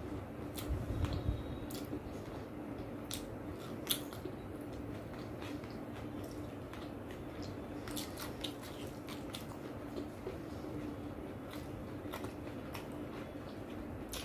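Close-miked eating: rice and chicken curry being mixed by hand and chewed, with wet squishes, sharp mouth clicks and smacks scattered throughout, over a faint steady hum.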